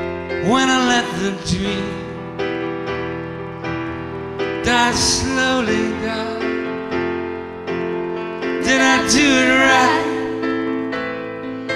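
Live band performance: sustained piano-like keyboard chords, with a woman's voice and other voices singing three long, wavering phrases over them.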